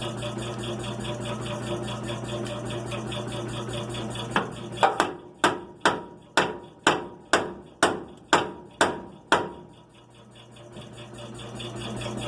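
A hammer striking metal about eleven times in a steady rhythm, roughly two blows a second, each with a short metallic ring, during front suspension ball-joint work. A steady low hum runs underneath.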